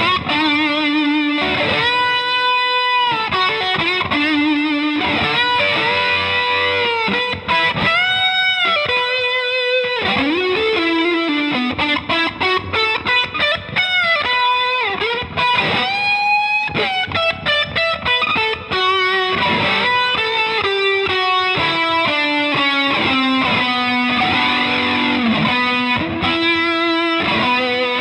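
Electric guitar played through an effects pedalboard, with a distorted lead tone: slow melodic lead lines of sustained notes with string bends and vibrato, and a quicker run of short notes around the middle.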